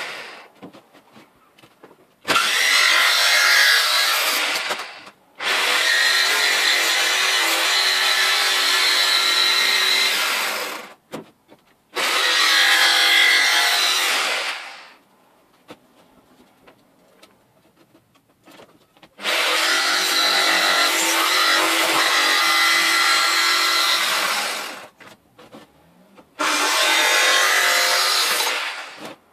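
Electric jigsaw cutting a round hole in a thin sheet panel. It runs in five cuts of a few seconds each, stopping briefly between them as the saw is backed up and repositioned.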